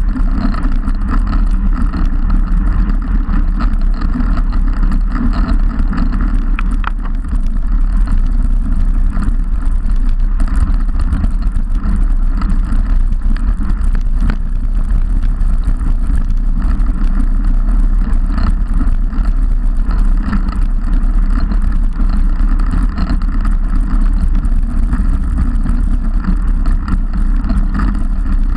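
Steady wind rush buffeting the microphone of a bike-mounted action camera on a road bike riding at speed, mixed with the hum of the tyres on the tarmac.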